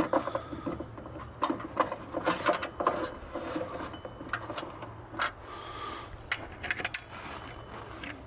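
Irregular light clicks and knocks of metal parts being handled as an idler pulley is fitted back onto the engine's belt drive.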